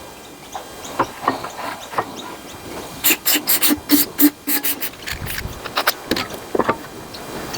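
Metal clicks and knocks from hand tools and engine parts while the carburetor is taken off a Briggs & Stratton lawnmower engine. About halfway through comes a quick run of around a dozen sharp clicks, followed by a couple of louder knocks.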